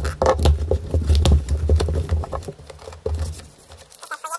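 Cardboard parcel wrapped in printed packing tape being cut open with scissors and unpacked: a quick run of scraping, snipping and crinkling clicks, easing off after about three and a half seconds into lighter paper rustling.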